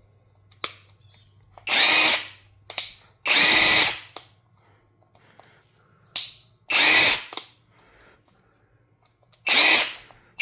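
Brushless 1/2-inch cordless impact wrench spun with no load in four short trigger pulls. Each whine lasts about half a second and then winds down, in keeping with the auto-stop that halts the motor on a dry run.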